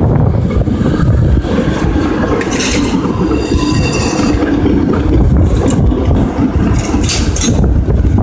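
Vintage PCC electric streetcar passing close by on street tracks: the steady rumble of its steel wheels on the rails, with a brief high-pitched wheel squeal about three seconds in.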